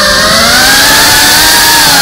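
FPV quadcopter's brushless motors and propellers whining loudly, heard from the drone's onboard camera. The pitch dips at the start, climbs over the next second or so, then eases down near the end as the throttle changes.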